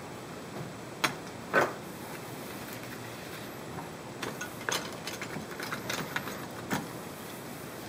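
A plastic GorillaPod-style flexible tripod and other small camera accessories being handled and set into a foam-lined hard plastic case. There are two sharp knocks about a second and a second and a half in, then a run of lighter clicks and rattles between about four and seven seconds.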